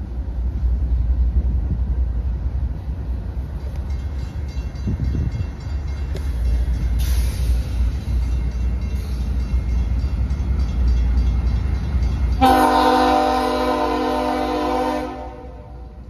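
Diesel freight locomotive approaching with a low rumble, then sounding its horn in one blast of several notes at once, starting suddenly a little after halfway and lasting about two and a half seconds.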